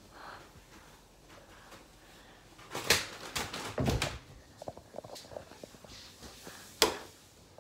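Handling noise from a phone camera being moved about: rubbing and small clicks, with sharper knocks about three seconds in, around four seconds and near seven seconds.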